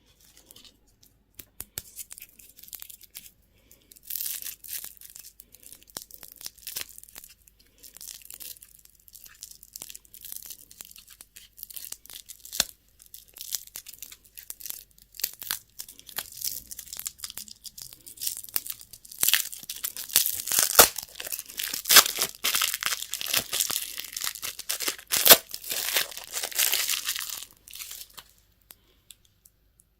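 Candy wrappers being torn open and crinkled by hand: dense crackling with many sharp clicks. It grows louder in the second half and stops near the end.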